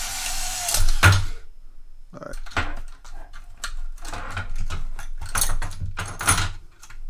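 Ratcheting wrenches clinking and knocking as they are worked out of their plastic retail packaging. A scraping rustle of plastic comes first, then a sharp knock about a second in, then a run of irregular metal clicks and clinks.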